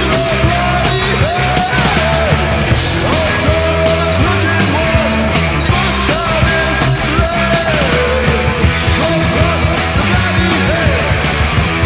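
Speed metal recording playing: a metal band's distorted guitars, bass and drums in a continuous fast song.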